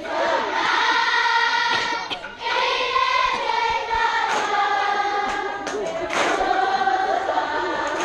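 A large group of voices singing together in long held notes, like a choir, in phrases with brief breaks about two seconds in and again near six seconds.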